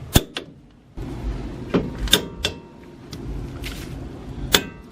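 Sharp metallic clicks and clanks of hand tools on the Jeep Cherokee's front wheel hub. There are about six of them, some ringing briefly, as the wheel bearing's bolts are tightened to torque.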